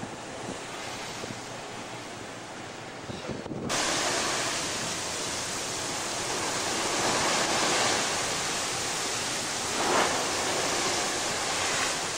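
Wind and waves on a rough open sea, an even rushing noise that jumps abruptly louder about four seconds in and swells in a brief gust near ten seconds.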